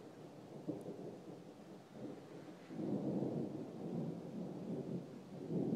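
Thunder rumbling in a long, uneven roll that swells to its loudest about three seconds in and surges again near the end.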